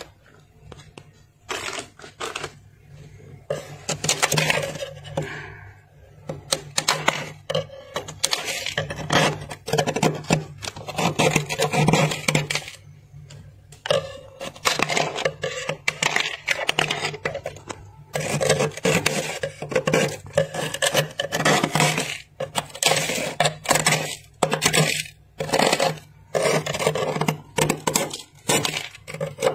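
Built-up freezer frost being scraped with a hand tool: rough, scratchy strokes in quick irregular runs with short pauses, starting about a second and a half in.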